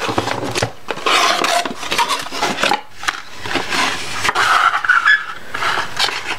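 Cardboard puzzle box being opened by hand and its folded paper insert slid out: rustling, scraping and sliding of card, with a few sharp clicks and knocks.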